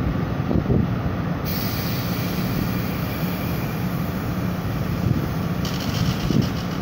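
Tri-Rail diesel-electric locomotive idling with a steady low engine hum while the train waits. A high hiss comes in about a second and a half in and changes to a rougher, ragged noise near the end.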